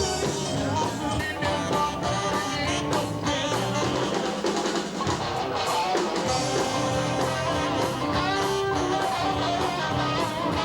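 Rock-and-roll band music with guitar, drums and singing.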